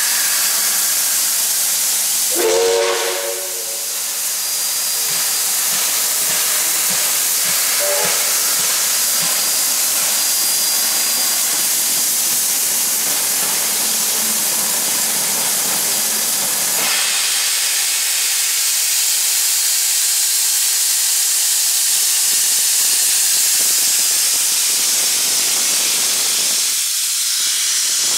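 Steam locomotive hissing loudly as steam escapes around its cylinders and wheels, the hiss turning harsher about seventeen seconds in. A short whistle toot sounds about two and a half seconds in, and a briefer one around eight seconds.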